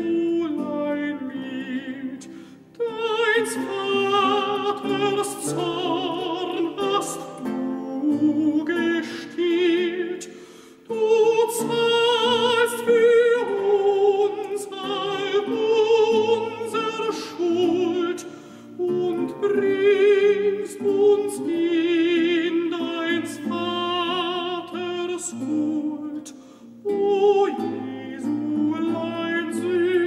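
Operatic solo voice with wide vibrato singing a slow song in long held phrases, breaking off for brief pauses about every eight seconds, over quiet instrumental accompaniment.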